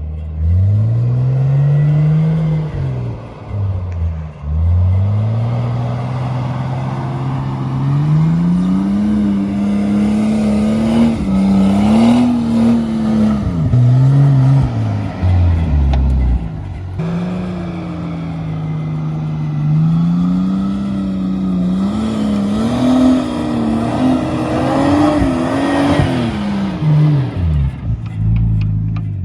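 Nissan Patrol off-roader's engine under hard throttle, revving up and dropping back several times, with sharp falls in pitch about 4, 16 and 28 seconds in.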